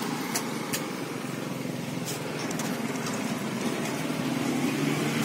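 Car engine idling steadily, with a couple of clicks about half a second in.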